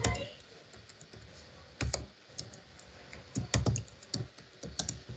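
Computer keyboard keys being typed: irregular clusters of clicks as a username and password are keyed in.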